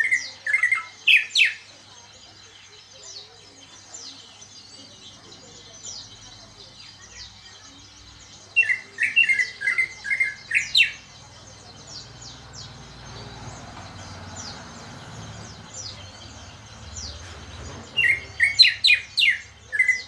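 Male greater green leafbird (cucak ijo) singing in three bursts of quick, sharp whistled notes: one at the start, one about nine seconds in, one near the end. It is a bird just beginning to sing out after its moult.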